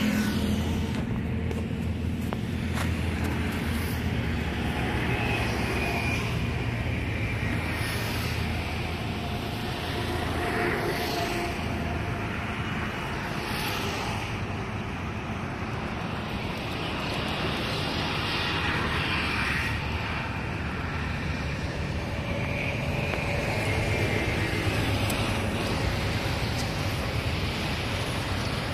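Steady road traffic passing over a bridge: a continuous low rumble of engines and tyres, swelling slightly as vehicles go by.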